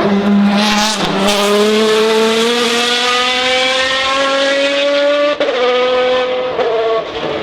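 Racing car accelerating hard past the spectator side of the course, its engine note climbing steadily in pitch for several seconds. The note then drops twice in quick steps near the end as it changes up through the gears.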